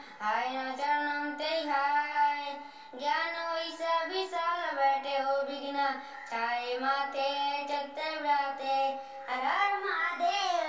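A boy singing a Sanskrit prayer in a single voice, with long held notes and flowing melodic phrases. Near the end a phrase rises and then glides down as the verse closes.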